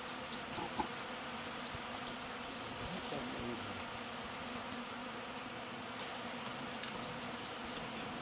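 Honey bee swarm buzzing steadily around a hive it is moving into, with single bees droning close past now and then.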